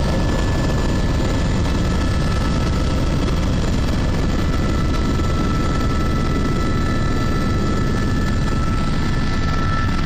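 Helicopter in flight heard from inside the cabin: a steady rotor and engine drone with a thin, high steady whine on top.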